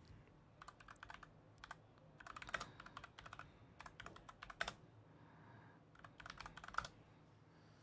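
Typing on a computer keyboard: short runs of quick key clicks with pauses between them, the last run ending about a second before the end.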